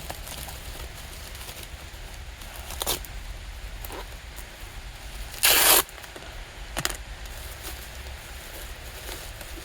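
Packaging being handled and opened: a few light knocks and rustles, with one loud, brief tearing rip about halfway through.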